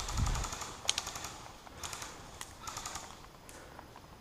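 Airsoft electric rifles firing several short full-auto bursts, each a quick run of sharp clicks, scattered through the exchange.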